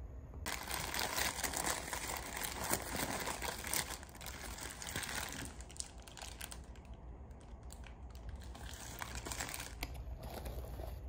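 Paper fast-food wrappers and a paper bag rustling and crinkling as they are handled. It is loudest in the first half and comes back briefly near the end.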